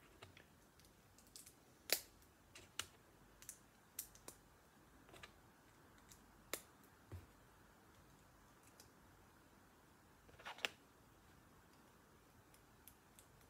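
Small plastic Lego pieces clicking and tapping as they are handled and pressed together: about a dozen sharp, irregular clicks, the loudest about two seconds in and again near ten and a half seconds.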